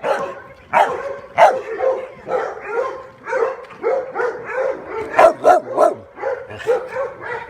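Dogs barking repeatedly, several sharp barks and yips a second overlapping one another.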